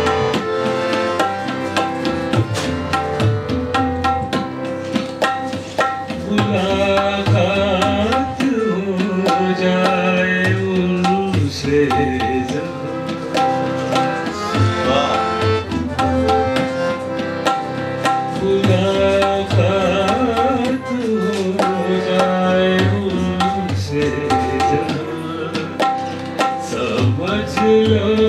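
Ghazal performance: tabla plays a steady accompanying rhythm under harmonium, with a man's voice singing phrases that come and go between instrumental passages.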